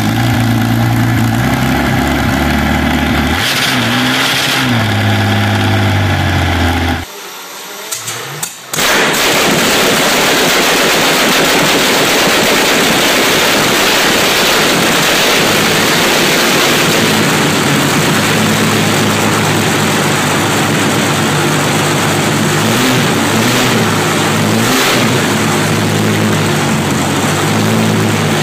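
Rolls-Royce Meteor V12 petrol tank engine, a derated Merlin, running on a stand and revving up and back. About seven seconds in the sound cuts briefly to a second bare Meteor, which then runs loud and rough, with a few short revs near the end.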